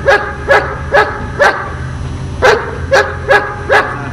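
A dog barking in sharp, regular barks, about two a second, with a pause of about a second in the middle.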